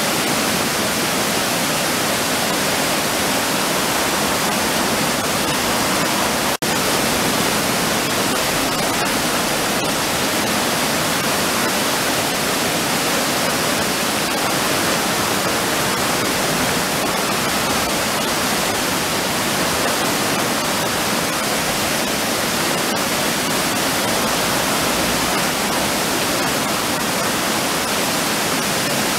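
River water rushing steadily over a low stepped weir, an even white-water noise without change, broken only by a momentary dropout about six and a half seconds in.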